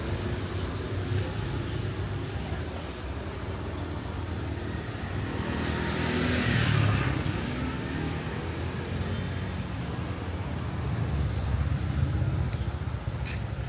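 Road traffic noise, steady, with one vehicle passing close about six seconds in, the loudest moment.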